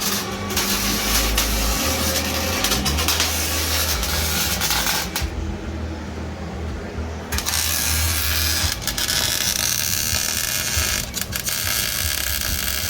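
Welding arc crackling and hissing in long runs, breaking off about five seconds in for a couple of seconds, then starting again.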